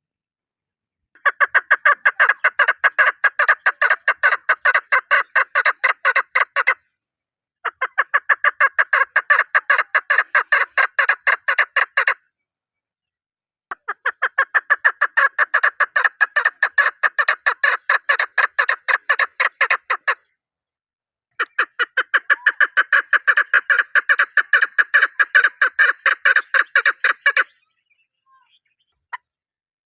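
Chukar partridge giving its rapid, repeated chuck-chuck rally call in four long bouts of several notes a second, each bout broken off by a short silence.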